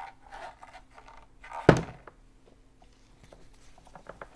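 Quiet handling sounds with one sharp thunk about a second and a half in, and a few small ticks near the end, from setting up and plugging in a compact electric iron.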